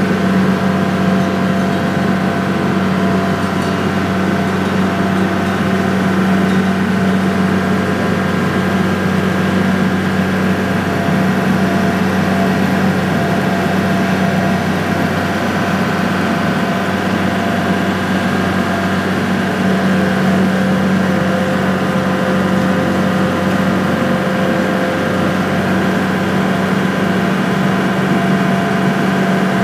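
Ferry boat's engine running steadily under way, heard on board: a constant low drone with a steady hum that never changes in pitch.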